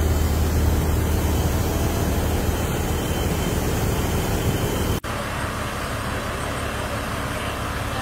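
Combine harvester's engine running steadily while its unloading auger empties rice grain into a truck bed, a constant low hum with a mechanical wash over it. About five seconds in the sound changes abruptly to a thinner, noisier mix of the same machinery.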